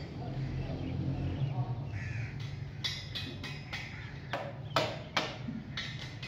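A welding machine hums steadily between arc-welding passes. A few sharp taps and knocks come as the electrode holder and hand shield are handled.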